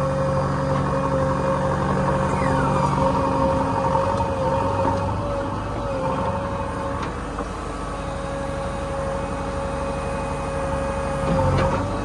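Heavy diesel engine running steadily, with a steady high whine above the engine hum. A short falling squeal comes about two and a half seconds in, and a knock near the end.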